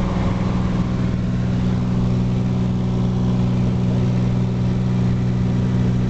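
Cessna 182's piston engine and propeller droning steadily at climb power, heard from inside the cabin.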